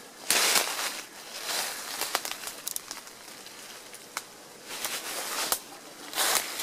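Footsteps crunching on dry fallen leaves and twigs in uneven bursts, with a few sharp snaps of twigs and a quieter stretch in the middle.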